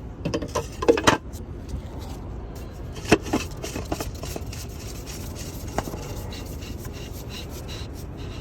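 Workshop handling noises: scattered clicks, knocks and scraping from tools and parts being handled. The loudest are a cluster of knocks about a second in and one sharp knock about three seconds in, with lighter ticks after.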